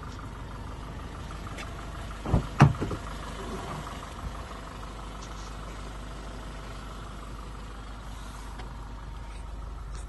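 Toyota Hilux 2.4 D-4D four-cylinder diesel engine idling steadily, heard as a low hum, with two sharp thumps about two and a half seconds in.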